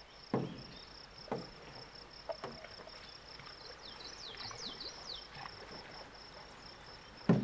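Steady high buzz of insects, with a few short splashing knocks of a single canoe paddle stroking the water, about a second apart early on and one louder near the end. A few quick falling chirps sound about halfway through.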